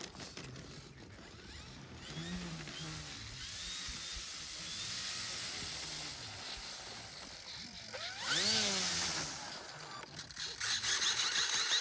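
Electric motor and propeller of an E-flite Turbo Timber RC plane taxiing on grass, its pitch rising and falling with short bursts of throttle, the biggest about eight seconds in. It grows louder and noisier near the end as the plane comes up close.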